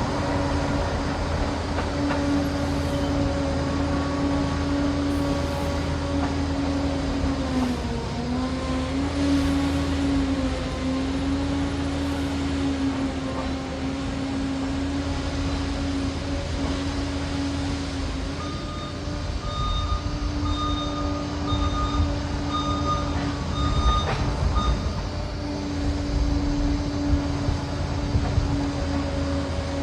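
Liebherr PR 746 Litronic crawler dozer running steadily with a constant whine, its pitch dipping briefly about a quarter of the way in. A little past halfway, a high intermittent beeping comes and goes for several seconds.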